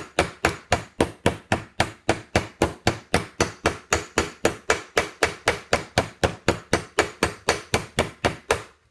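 Ball-peen hammer striking a copper rivet on a steel plate over leather in a quick, even rhythm of about five strikes a second. The strikes work around the rivet's edges, spreading its head into a dome, and stop just before the end.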